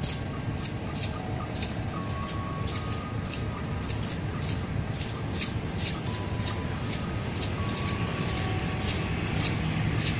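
Distant GE C18MMi (CC 204) diesel locomotive hauling a container train, heard as a low engine rumble that slowly grows louder as it approaches. Rapid, irregular high-pitched chirps and a few short whistled notes sound over it.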